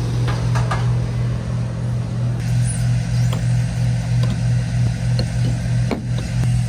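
Aviation fuel pump running with a steady, slightly pulsing low hum while a helicopter is refuelled with Jet A-1. Light clicks and clatter come from the fuel nozzle and hose being handled.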